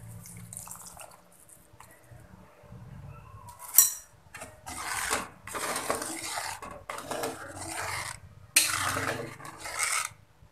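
A metal spoon stirring coconut milk into a soupy beef broth in a metal wok. A sharp clink against the pan a little before halfway, then several seconds of scraping and sloshing strokes, with a brief pause near the end.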